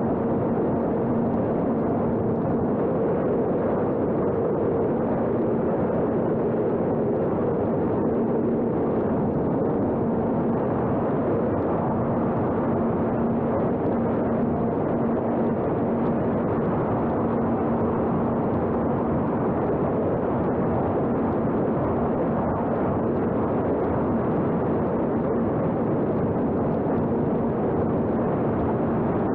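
Small electric RC airplane's motor and propeller running steadily at constant throttle: a steady hum under a heavy rush of wind noise.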